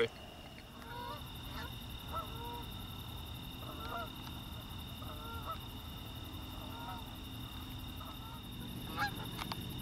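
A flock of Canada geese honking in flight, one call after another about every half second to second.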